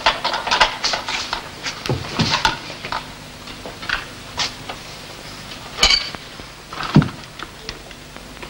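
Scattered light knocks and clatters, with a sharp clack about six seconds in and a low thud about seven seconds in.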